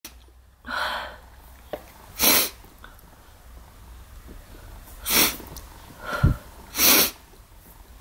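A woman's sneezes, muffled behind a hand held over her nose and mouth: a softer one near the start, then three sharper ones a few seconds apart.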